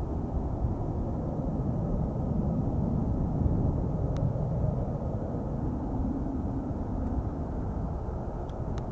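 Distant McDonnell Douglas MD-83 airliner after takeoff: a low, steady rumble from its two Pratt & Whitney JT8D-219 turbofan engines, swelling slightly about a third of the way through.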